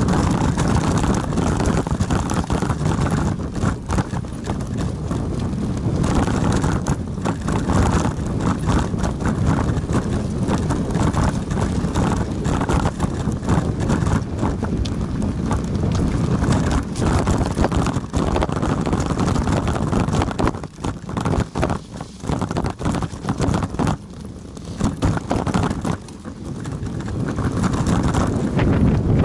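Wind buffeting the microphone of a camera riding on a moving bicycle, with a stream of knocks and rattles from rolling over rough asphalt. It eases for a few seconds about two-thirds of the way through, then picks up again.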